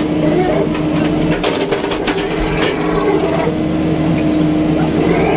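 Hydraulic excavator's diesel engine running with a steady hum, with a run of clanks and scrapes between about one and a half and three seconds in as the bucket works the earth.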